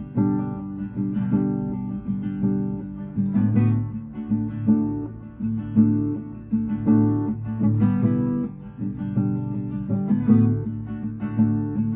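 Acoustic guitar strumming chords at an even, unhurried pace.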